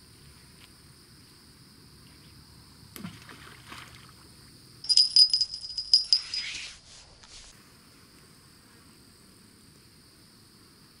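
A pair of small jingle bells used as a bite alarm, clipped to a stick that holds a hand-cast ledger line, jingling in a quick cluster of strikes for about a second and a half as they are handled, about halfway through.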